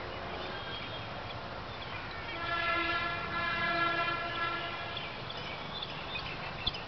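A horn sounds one long steady note, starting a little over two seconds in and lasting about two and a half seconds.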